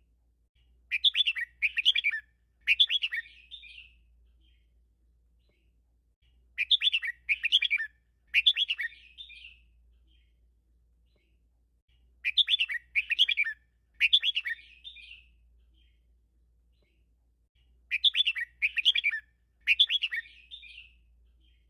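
Red-whiskered bulbul singing its song over and over: four bouts about six seconds apart, each three quick loud phrases and a softer trailing end. A faint low hum runs underneath.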